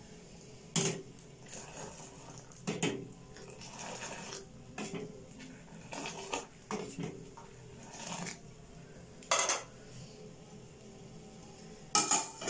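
Steel ladle clinking against a steel saucepan as pink tea is scooped up and poured back in, with a few sharp clinks spread through and softer splashing between them. Near the end a steel lid clatters onto the pan, the loudest sound.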